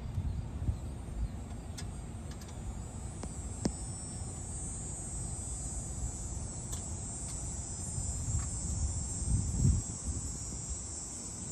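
Steady high-pitched insect chirring over a low rumble, with a few faint clicks of bolts and a metal backplate bracket being handled while the bolts are tightened by hand. The sharpest click comes a little over three and a half seconds in.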